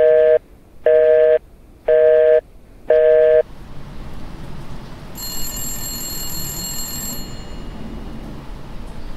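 Telephone busy tone: a loud two-note beep, about half a second on and half a second off, sounding four times before stopping. A steady hiss follows, with a high ringing tone for about two seconds midway.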